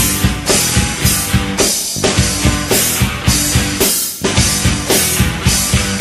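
Instrumental break in a rock song: a drum kit playing a steady beat under the band.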